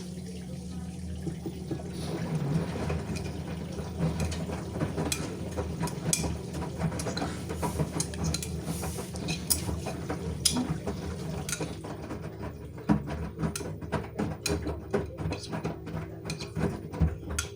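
LG washing machine running a wash: a steady motor hum with water noise, and many small clicks and knocks from about two seconds in as the drum turns.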